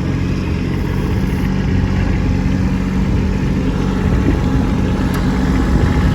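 Kubota B2601 compact tractor's three-cylinder diesel engine running steadily while it pushes snow with its rear blade, growing slightly louder near the end.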